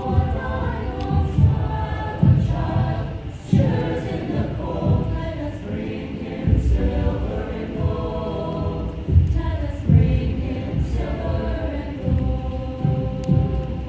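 A mixed-voice school choir singing a Christmas song in parts, with low thuds about once a second underneath.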